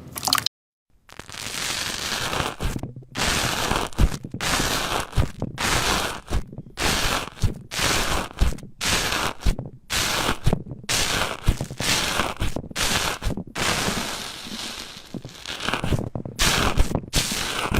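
Crunchy slime being squeezed and pressed, crackling and crunching in repeated bursts of about a second each with short breaks between them.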